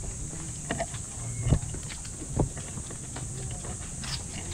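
Footsteps walking on a concrete path, a thud roughly every second, the loudest about a second and a half in, over a steady low hum and a steady high hiss.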